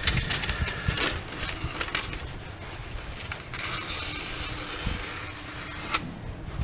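Knife blade stroked freehand across sandpaper on a Washboard sharpening board: a few short scraping strokes, then one longer scrape from about three and a half to six seconds in.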